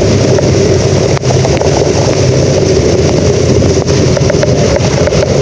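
A motor vehicle's engine running steadily while travelling along a rain-soaked road, under loud wind noise on the microphone.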